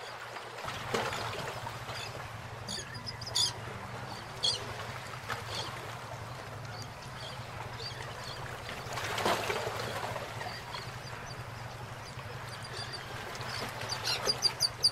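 Quiet outdoor ambience: a steady low hum under scattered short, high chirps and clicks, with a quick run of clicks near the end.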